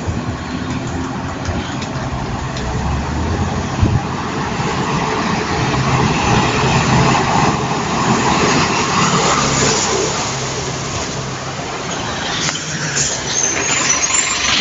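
City bus engine running as the bus pulls in to the stop, growing louder over several seconds as it comes closer, with a brief high squeal near the end.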